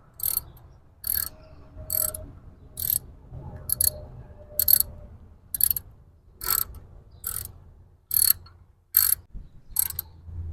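Hand ratchet wrench clicking in short bursts, about one every second, as the ignition coil's hold-down bolt is tightened back down.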